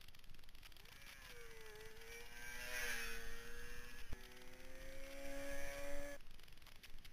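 Inline-four sport motorcycle engine revving in the distance, its pitch climbing to a peak about three seconds in. It rises again until the sound cuts off abruptly about six seconds in.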